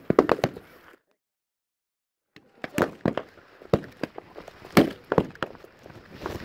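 Scattered blank rifle fire in a mock battle: single sharp cracks at irregular intervals, some close and some farther off. About a second in, the sound cuts to dead silence for about a second and a half before the shots resume.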